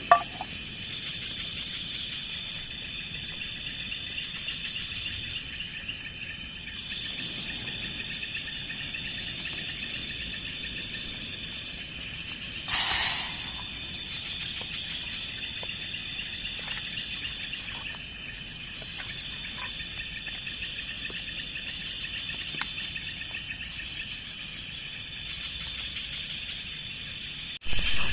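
Steady chorus of night insects such as crickets, a dense high chirring that goes on throughout. About halfway through there is one brief, loud hiss.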